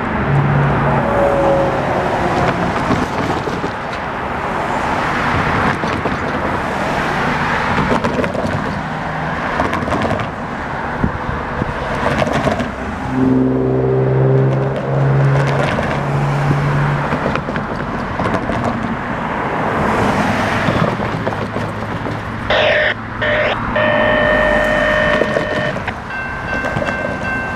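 Road traffic: cars driving past a railroad grade crossing. Near the end the crossing's warning bells start ringing as the signals activate for an approaching train.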